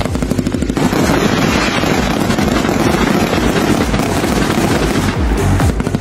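A fireworks display: dense, rapid crackling and popping of bursting shells, many reports a second, over a continuous low booming.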